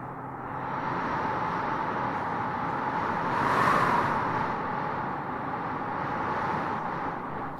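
A heavy truck's engine running steadily under a rushing noise that swells about three and a half seconds in and then falls back.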